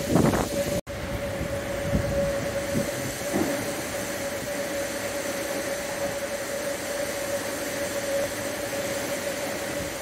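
Strong thunderstorm winds and heavy rain making a steady roar, with a few gusts surging in the first few seconds. A steady droning tone runs beneath the roar, and the sound cuts out for an instant about a second in.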